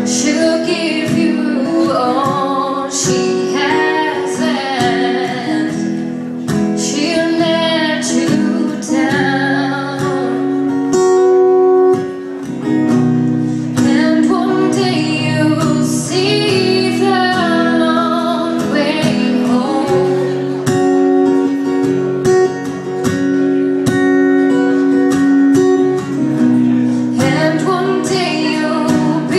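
Live song: a woman singing into a microphone, accompanied by strummed acoustic guitar.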